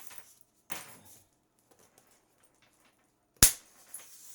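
A statue's packaging box being worked open by hand: a brief scraping rustle about a second in, then a single sharp knock or snap near the end, the loudest sound.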